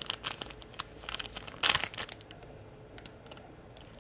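Clear plastic bag around a wax melt crinkling as it is handled, in irregular crackles that are loudest about a second and a half in and thin out after that.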